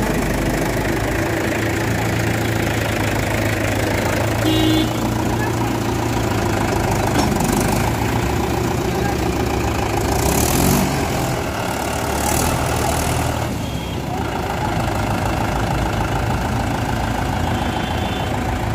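Mahindra 575 DI tractor's four-cylinder diesel engine running steadily under load as it pulls a loaded brick trolley through soft dirt.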